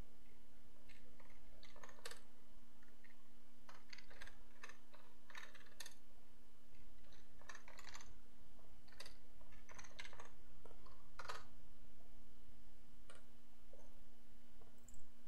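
Typing on a computer keyboard: irregular keystrokes for about ten seconds, thinning to a few separate clicks near the end.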